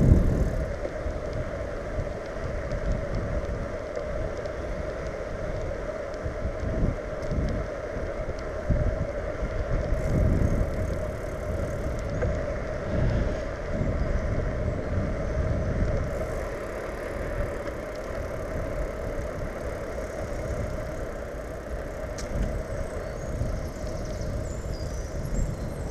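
Steady, uneven rumbling noise of a bicycle being ridden, heard from a camera mounted on the bike: wind buffeting the microphone over the tyres running on a wet road.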